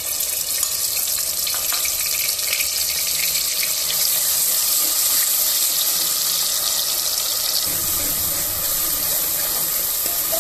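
Ground onion paste frying in hot oil in a pressure cooker, just after it has gone in: a loud, steady sizzle that eases a little near the end.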